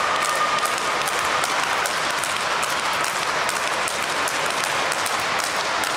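A steady, applause-like rush of noise fills the sports hall. Through it come quick, sharp clicks of speedball rackets striking the tethered ball, several a second at first, thinning out after about two seconds.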